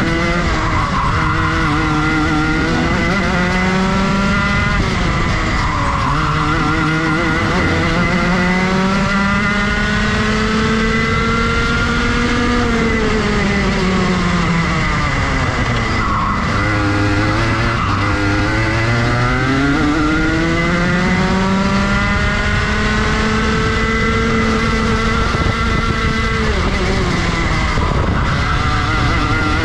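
Rotax Max Junior 125cc two-stroke kart engine at race pace, its pitch climbing steadily as it accelerates and then dropping away sharply off the throttle into corners, four or five times over. A faint steady high whine sits above the engine.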